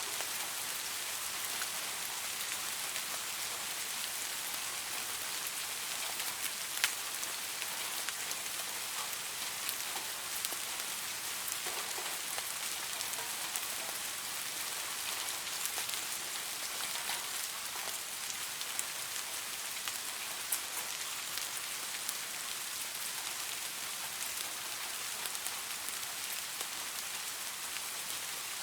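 Steady rain falling, an even hiss with scattered sharp drops pattering close by, one louder drip about seven seconds in.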